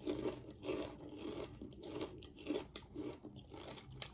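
Close-up mouth chewing of crunchy ridged potato chips (honey mustard Ruffles), a run of repeated crunches with a few sharper cracks.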